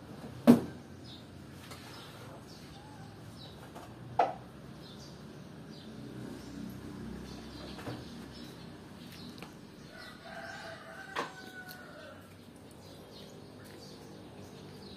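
Two sharp knocks, the first the loudest, over a low steady background, and a short pitched animal call about ten seconds in.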